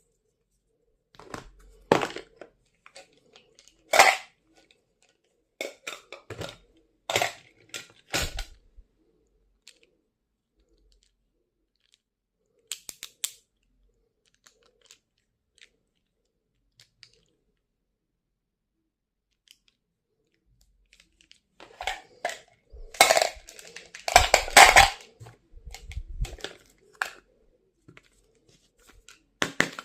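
Stationery packaging being handled and opened: short, scattered rustles and clicks. There is a quiet stretch of several seconds in the middle, then a busier, louder run of handling noise near the end.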